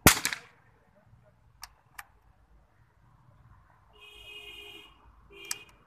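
.22 rifle fired once: a sharp crack with a short echo. A couple of light clicks follow, and from about four seconds in a metallic slide and then a shorter slide ending in a click as the rifle's bolt is worked to reload.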